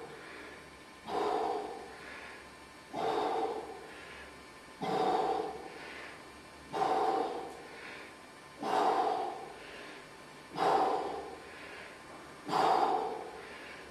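A man breathing out hard in short, forceful puffs, seven times, about one every two seconds. Each breath comes in time with a lift of a one-arm dumbbell row and marks the effort of that repetition.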